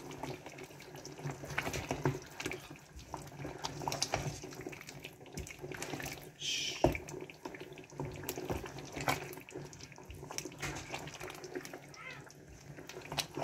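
Chicken tomato stew being stirred in a metal pot with a silicone spatula: wet sloshing of the thick sauce, with scattered light knocks of the spatula against the pot and one sharper knock about halfway through.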